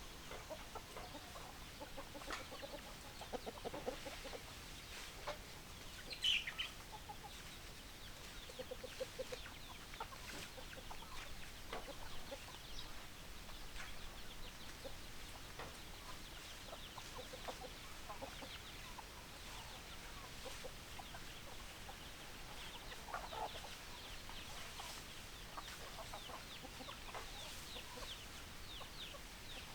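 Hens clucking, with short low clucks scattered throughout. About six seconds in comes one louder high-pitched call, and many short high chirps run through the second half.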